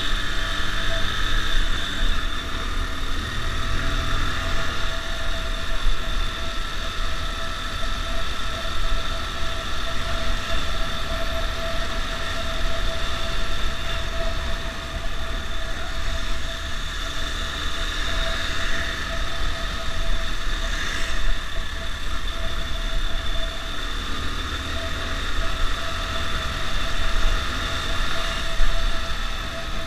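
Motorcycle being ridden in traffic, heard from the rider's own camera: steady engine running under a constant low wind rumble on the microphone, with a steady high whine throughout.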